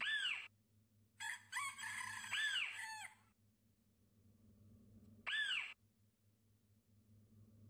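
Domestic chickens calling: a short rising-and-falling squawk, then a couple of seconds of several overlapping calls, then another short squawk, over a faint steady low hum.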